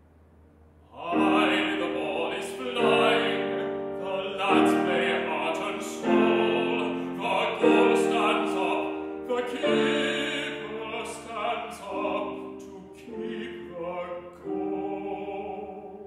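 A baritone singing a classical English art song in a loud, sustained voice, with grand piano accompaniment. After a brief hush the voice comes in about a second in and sings several phrases in a row.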